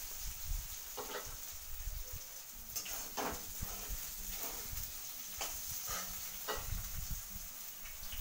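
Soybean chunks frying in mustard oil in a metal kadai, sizzling steadily, while a spatula scrapes and knocks against the pan in short strokes about once a second as they are stirred.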